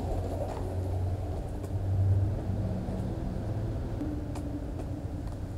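Longboard wheels rolling over rough asphalt: a steady low rumble whose upper hiss thins after about a second as the board moves away.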